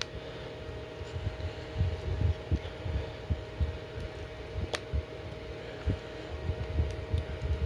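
Plastic Transformers Air Raid figure being handled and transformed: irregular low knocks of handling, with a sharp click about five seconds in. A steady electrical hum runs underneath.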